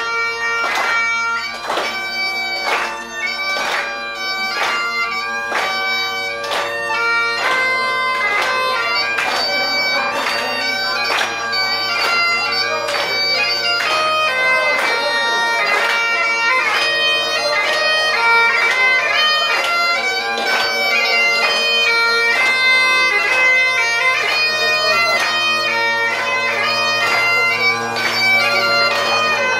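Great Highland bagpipe playing a tune over its steady drones, the melody broken by frequent quick gracenotes.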